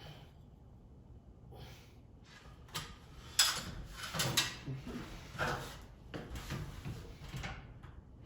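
A string of irregular scraping and clattering handling noises, the loudest about three to four seconds in, over a faint low steady hum.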